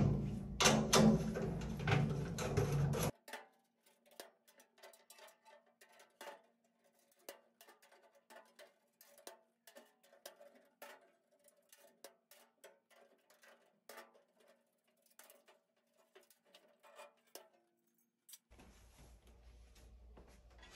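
Metal clinking and scraping as hex nuts and the steel faceplate are worked loose inside a Rowe BC-1400 change machine cabinet, loud for about the first three seconds. After that only faint scattered ticks and a soft steady hum remain.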